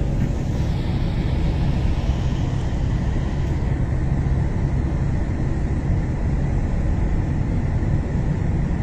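Steady street noise dominated by the low rumble of passing car traffic.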